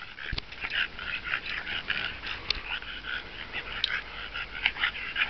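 English bulldogs at play, giving many short, high-pitched yips and whimpers in quick irregular succession.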